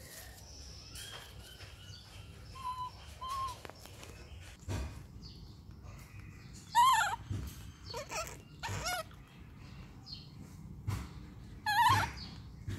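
Baby monkey crying in a series of short, wavering high-pitched cries: two soft ones, then louder ones, loudest about seven and twelve seconds in.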